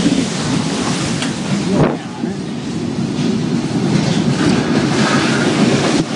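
Loud, steady rush of tornado winds, the noise people liken to a freight train, buffeting the microphone, with a single thump a little under two seconds in.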